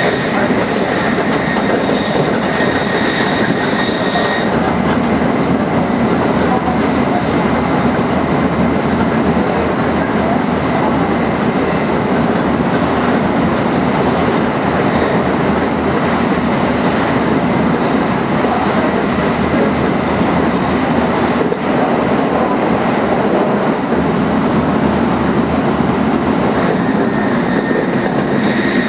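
Tokaido Shinkansen Nozomi bullet train running at high speed: a loud, steady rushing noise from the wheels and the air. A thin, high steady tone sounds over it for the first few seconds and again near the end.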